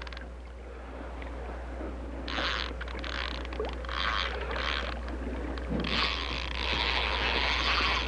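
Spinning reel's drag buzzing as a hooked steelhead pulls line off: a few short bursts past the second mark, then a longer run of about two seconds near the end.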